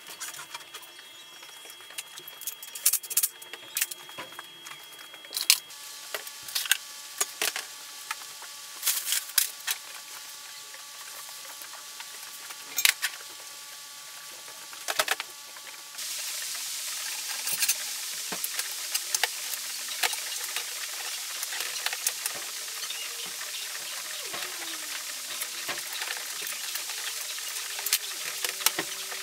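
Scattered metallic clinks and taps as hand tools and scooter frame parts are handled on a metal-topped workbench. A steady hiss comes in about halfway through.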